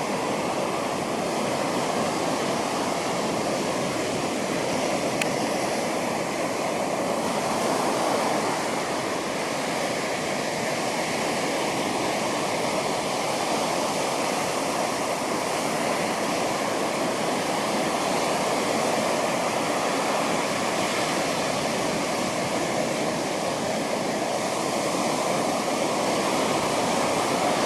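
Ocean surf washing onto a beach, a steady rush of noise with slow swells as the waves come in.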